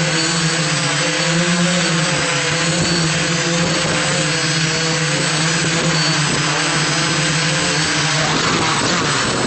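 Electric motors and propellers of an IDEAFLY IFLY-4S quadcopter, heard from on board, humming steadily with a slightly wavering pitch. Near the end the pitch sags and breaks up as the drone settles toward the ground.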